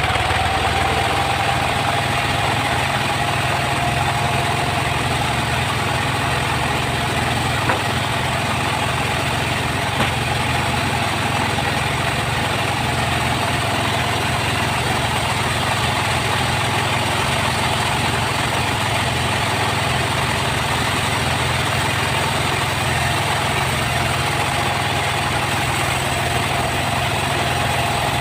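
Sawmill saw rig running steadily: a low engine hum under a steady higher tone that sags slightly in the first seconds and then holds.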